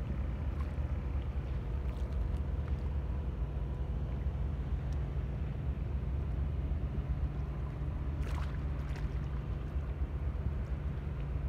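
Low, steady drone of a passing container ship's engine.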